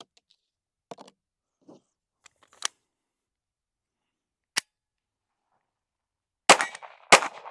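Taurus TX22 .22 LR pistol: a few light metallic handling clicks, then two sharp shots about half a second apart near the end, each with a short ringing echo.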